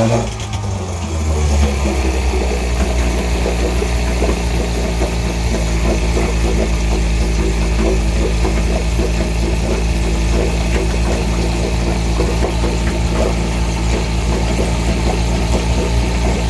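Two-stroke OMC outboard motor with a pressure fuel system, just started: its speed drops over the first second or two, then it runs steadily at idle.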